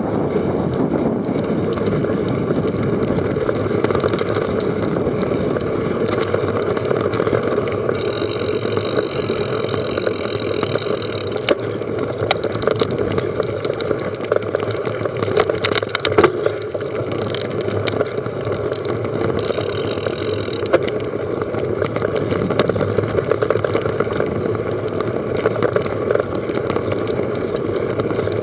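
Mountain bike ridden fast down a rough trail: steady rush of wind and tyre noise, with frequent rattles and knocks over bumps and a high whine twice.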